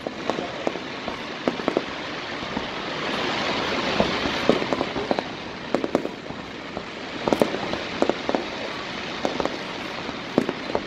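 Aerial fireworks shells bursting in a quick, irregular series of sharp bangs, over a continuous hiss that swells a few seconds in.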